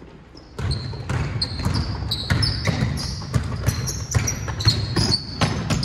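Basketball being dribbled and players' sneakers squeaking on a hardwood gym floor during play, starting about half a second in with many quick thuds and short high squeaks.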